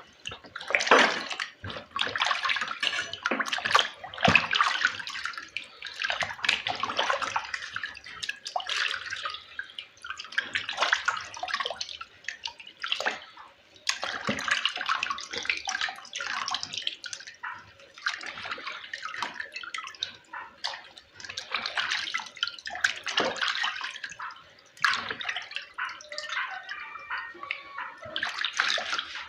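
Water splashing and sloshing in irregular bursts as raw offal (tripe and intestines) is washed.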